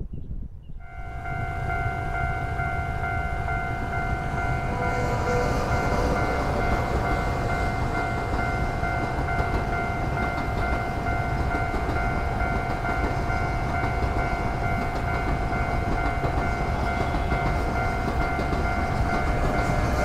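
Passenger train passing a level crossing: a steady low rumble, and from about a second in, steady ringing tones held over it.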